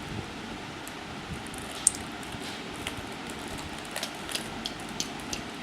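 Plastic Rubik's cube layers clicking as they are twisted: one sharp click about two seconds in, then a quick run of several clicks a second near the end, over a steady background hiss.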